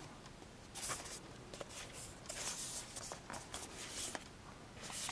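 A cardboard knife box being handled and opened by hand: faint scraping and rustling of card sliding against card in several short bursts, with a few light taps.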